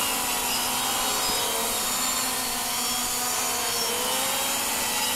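UPair quadcopter's motors and three-blade propellers buzzing steadily in a low hover, with faint tones that waver slightly in pitch as it yaws.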